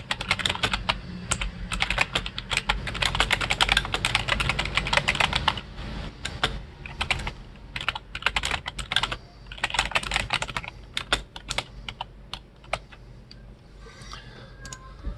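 Typing on a computer keyboard in quick runs of keystrokes with short pauses between, thinning out to a few scattered key presses after about twelve seconds.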